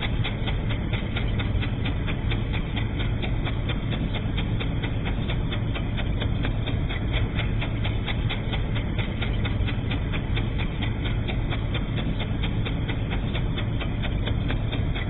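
Super 8 film projector running: its film-pulling mechanism clicks evenly about five times a second over a steady motor hum.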